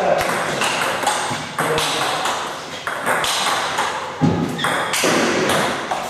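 Table tennis rally: the ball clicking sharply off the bats and the table in quick succession, with more ball clicks from a match on a neighbouring table.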